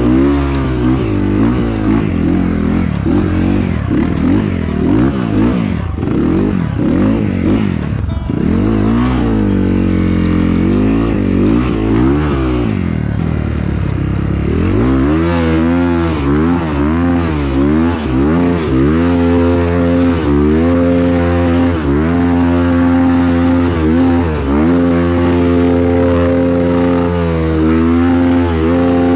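Motorcycle engine revving up and down. In the first half several engine notes overlap, rising and falling. From about halfway one engine dominates, its pitch rising and falling about once a second.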